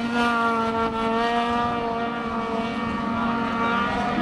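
Snowmobile engine running at a steady, held pitch as the sled skims across open water (water skipping), spray hissing under it.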